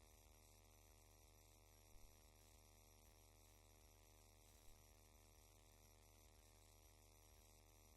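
Near silence: a faint, steady electrical hum, with two faint clicks about two seconds in and a little before five seconds.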